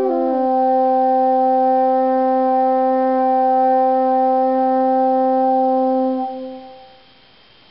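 French horn holding one long, steady low note after a quick slur into it, then stopping about six seconds in and dying away in the hall's reverberation.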